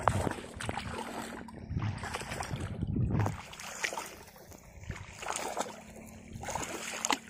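Shallow floodwater sloshing and splashing as a person wades shin-deep through flooded paddy stubble, legs pushing through the water. It is heaviest over the first three seconds, then turns to lighter, scattered splashes.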